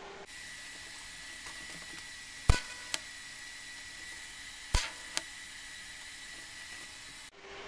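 TIG welder working on stainless steel: a steady hiss with a thin high whine, broken twice by a sharp crack, each followed by a smaller click about half a second later, as short tack welds are laid with filler rod to close gaps in the joints.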